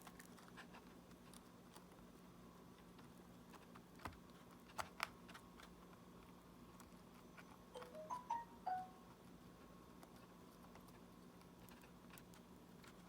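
Near silence over a low steady hum, with scattered faint small clicks and taps. Two sharper clicks come near the middle, and a quick run of short high chirps and ticks follows about two-thirds through.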